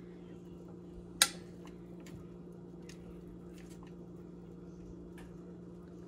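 Metal tongs flipping chicken drumsticks in a foil-lined pan: one sharp click about a second in, then scattered lighter clicks and taps, over a steady low hum.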